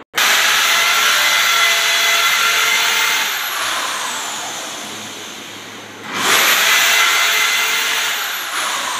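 Handheld electric drill boring into a wall, in two runs. Each starts suddenly at full speed, then its whine sinks in pitch and fades over a few seconds; the second run begins about six seconds in.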